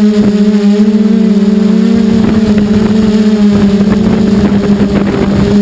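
QAV540 quadcopter's motors and propellers running with a steady, loud hum that wavers slightly in pitch.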